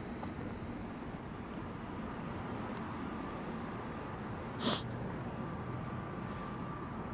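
Steady outdoor background noise with no crossing bell ringing, broken by one short, sharp hissy burst about two-thirds of the way in.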